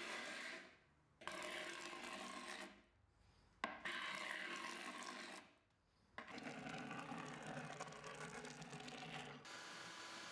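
Old paint being scraped by hand off a wooden dresser, in several strokes a second or three long with short pauses between them. The strokes grow longer toward the end.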